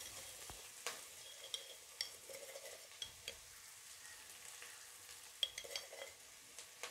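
Faint sizzling of shallots, curry leaves, chillies and dals frying in oil in an aluminium pot, with a few light ticks and pops scattered through it.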